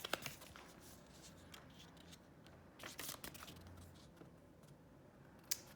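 Soft paper rustling as a small paperback guidebook is handled and its pages are turned, with a few brief rustles at the start and around three seconds in, and a sharp tick near the end.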